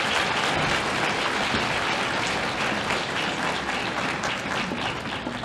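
Large audience applauding, a dense steady clapping that begins to thin out near the end.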